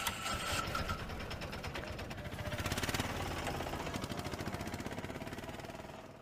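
A small engine running with a rapid, even pulsing beat, louder around the middle and fading near the end.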